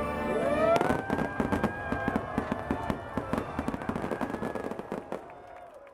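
Fireworks display finale: a rapid barrage of sharp crackling bangs and pops, starting about a second in and thinning out near the end.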